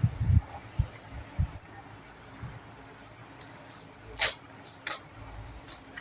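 A person eating close to the microphone: a few soft low thumps in the first second and a half, then three sharp crunches spaced less than a second apart near the end.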